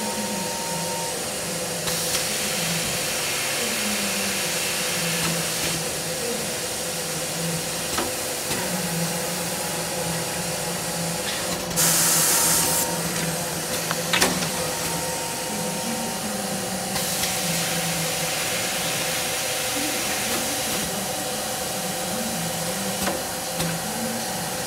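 Pronto end papering machine running: a steady mechanical hum and clatter with a low, cycling rattle, and spells of hissing air from its pneumatic cylinders, the loudest hiss about halfway through, followed shortly by a sharp click.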